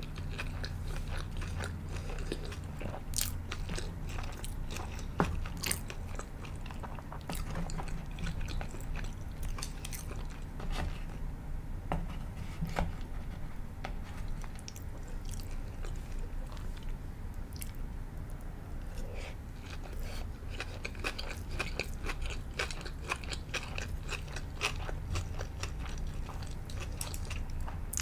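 Close-miked chewing and biting of sushi and sashimi, with frequent short crisp crunches and wet clicks of the mouth, over a steady low hum.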